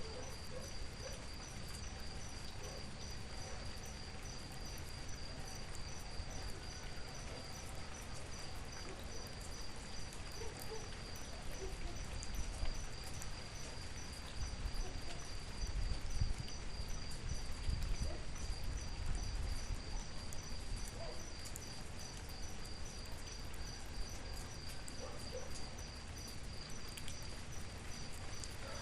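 Insects chirping in a fast, even pulse without a break, over a steady wash of outdoor background noise; a low rumble swells for a few seconds past the middle.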